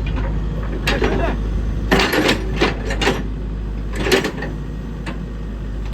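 Used XCMG excavator's diesel engine running steadily at a low drone, with people talking over it and a few short clanks.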